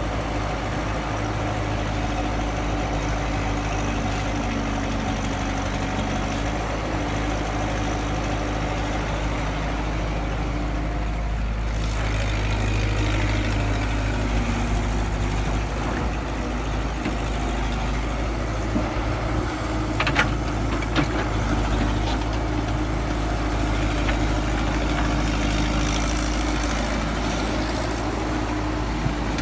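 Excavator's diesel engine running steadily, its note shifting and getting slightly louder about twelve seconds in, with a couple of short sharp knocks about two-thirds of the way through.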